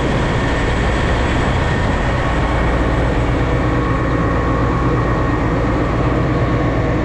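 Combine harvester running steadily: a loud, even machine drone with a few steady hum tones.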